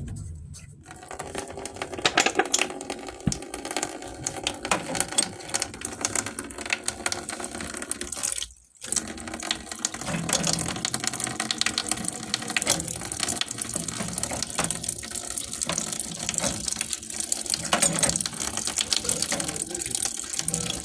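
Water running steadily, with scattered metallic clicks and clatter from hand tools working on a plumbing fitting. The sound drops out briefly about eight and a half seconds in.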